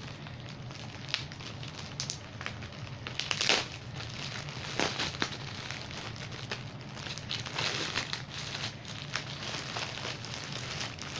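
Plastic packaging bag crinkling and crackling as it is handled and opened, in irregular bursts, loudest about three and a half seconds in, over a low steady hum.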